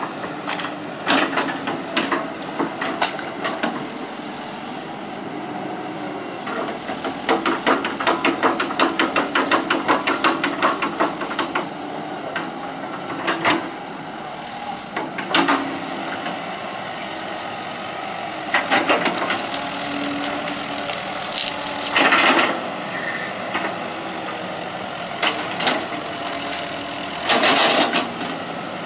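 Hitachi EX120 hydraulic excavator's diesel engine running steadily, with metallic clanks and rattles as the machine works. A quick run of rattling clicks comes about a third of the way in, and louder bursts come near the end.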